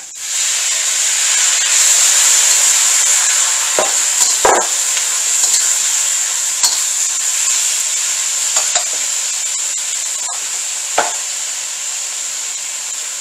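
Honey-soy marinade sizzling in a hot wok of mushrooms and peppers: the sizzle surges as the liquid goes in, then settles into a steady hiss that eases slowly. A metal spatula scrapes and clinks against the wok a few times as the vegetables are stirred.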